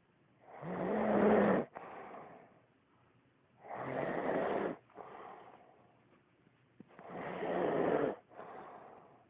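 A man snoring in deep sleep: three loud snores about three seconds apart, each followed by a quieter breath out.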